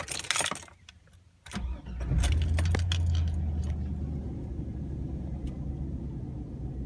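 Keys jangling, then about a second and a half in a BMW M62B44 4.4-litre V8 starts, swells briefly and settles to a steady idle. The owner says this engine has started knocking and hopes the cause is a worn timing chain guide.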